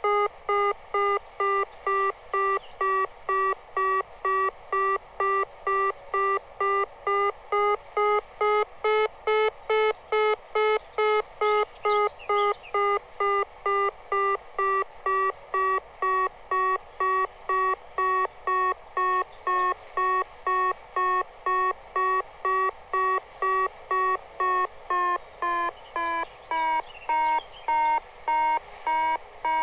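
Telemetry altimeter tone from a radio-control system, beeping evenly about twice a second. The pitch steps down a little after about 25 seconds.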